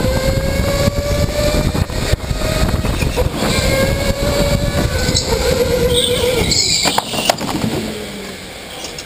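Electric go-kart motor whining while the kart is driven hard, over a heavy low rumble from the kart and the onboard camera. The whine drifts slightly up and down in pitch, fades about six and a half seconds in, and the sound drops away and cuts off at the end.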